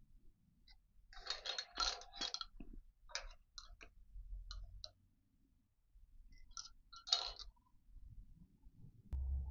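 Sharp metallic clicks and clinks in three short clusters as the milling machine's table handwheel and fittings are handled. A steady low hum starts near the end.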